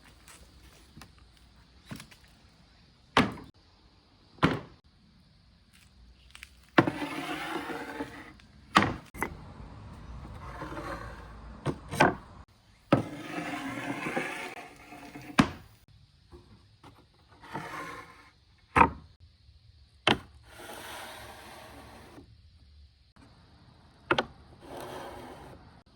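Glass marbles rolling along marble run slopes with a rattling rumble, in several runs of one to two seconds each, broken by sharp clicks and clacks as they drop onto and knock against the track pieces.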